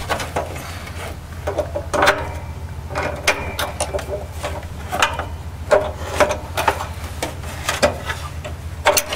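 A string of short clicks and knocks, about a dozen spread over several seconds, as a brass propane quick-connect hose fitting is worked onto the inlet of a Mr. Heater Big Buddy portable heater and handled against its plastic housing. A steady low hum runs underneath.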